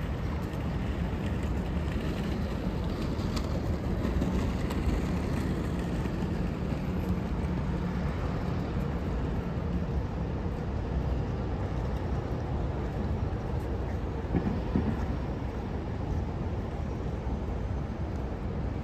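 Steady low rumble of a moving vehicle, with no distinct events.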